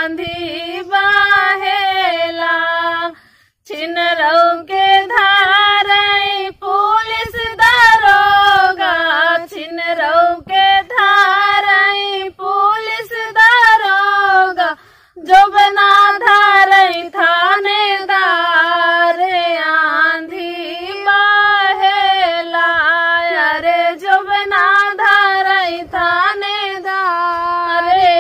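Two women singing a Bagheli gaari geet, a folk wedding song, with no instrument behind them. The singing breaks off briefly twice, about three and fifteen seconds in.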